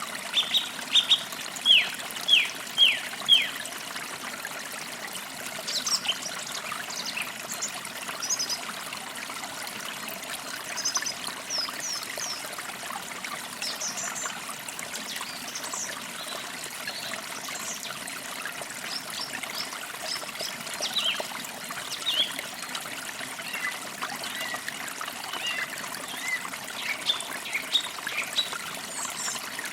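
Forest creek water trickling steadily, with birds chirping over it: a quick series of falling notes in the first few seconds, then scattered short, high chirps.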